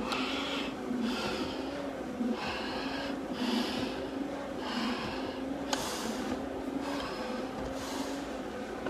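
Hard breathing through a firefighter's full-face breathing-apparatus mask: a hissing breath about every second, from the exertion of a long stair climb. A steady low hum runs underneath.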